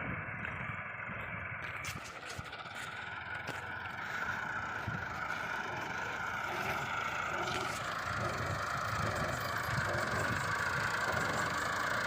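A heavy machine's engine running steadily, with metal clattering and rattling and scattered knocks.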